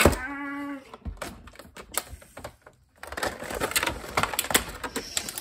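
Scissors snipping through a stiff clear plastic clamshell pack, and the plastic crackling as it is bent and pulled apart: a run of sharp clicks and crinkles, sparse at first and dense in the second half. A brief voiced sound comes just after the start.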